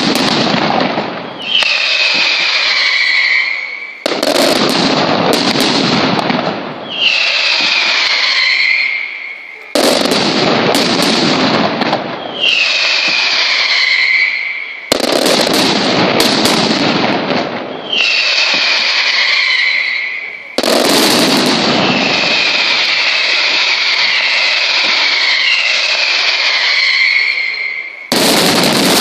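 Mascletà: a dense, continuous barrage of firecracker bangs, with shrill whistles sliding down in pitch over the din. The barrage breaks off and starts again abruptly several times.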